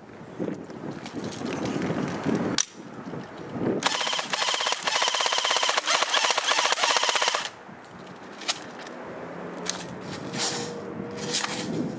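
ICS L86A2 LSW airsoft electric gun firing a full-auto burst of about three and a half seconds: a rapid, even clatter of shots. It starts about four seconds in, and a few single sharp shots follow it.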